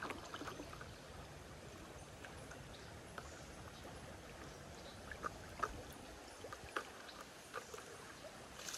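Shallow creek water flowing and lapping around a stand-up paddle board, with scattered small splashes and drips.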